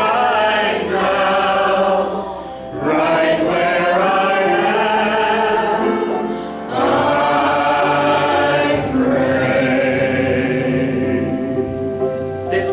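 Choir singing a gospel-style devotional song with musical accompaniment, in long held phrases broken by short pauses about two and six and a half seconds in.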